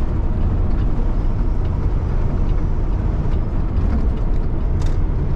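Steady low rumble of a Peterbilt 579 semi tractor's Cummins ISX15 diesel and road noise heard from inside the cab while driving, with a single sharp click near the end.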